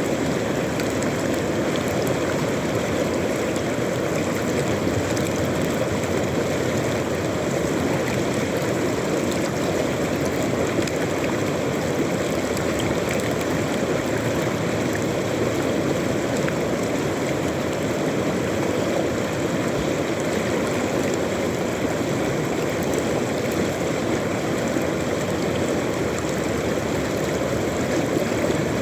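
River water rushing and gurgling over stones in a steady, unbroken wash.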